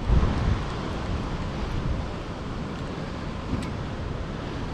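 Steady rushing noise of water pouring through a spillway, mixed with wind. Low wind buffets hit the microphone in the first half second.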